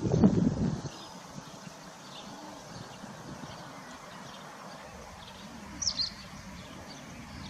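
A short, loud low burst of sound in the first second, then steady outdoor background with scattered bird chirps, one louder chirp about six seconds in.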